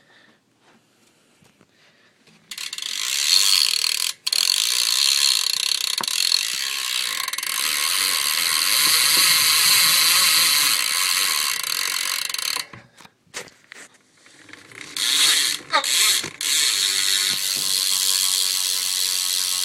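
Demolition Rolls cassette rear hub on a BMX bike freewheeling as the wheel spins, its ratchet pawls clicking so fast they run together into a loud buzz. It runs for about ten seconds, stops, and starts again about two seconds later.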